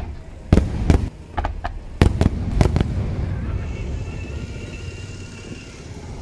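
Aerial firework shells bursting in quick succession, about seven sharp bangs in the first three seconds, then a lull with only the steady background and a faint high tone.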